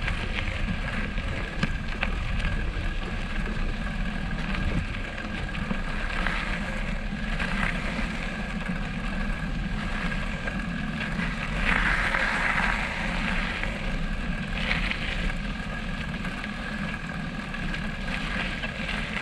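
Wind rushing over the microphone while riding a bicycle on a rough track, with a faint steady high whine under it. The rush swells briefly about twelve seconds in.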